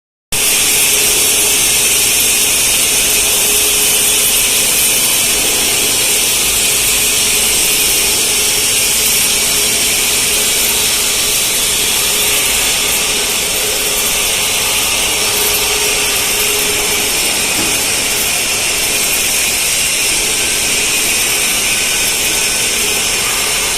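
Automatic pipe welding machine running during submerged-arc cap welding on P91 pipe: a steady, even hiss of machine and workshop noise with a faint steady hum.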